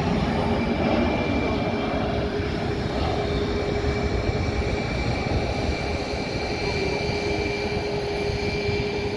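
Boeing 737 airliner's jet engines during landing roll-out: a steady rumble with a constant whine on top.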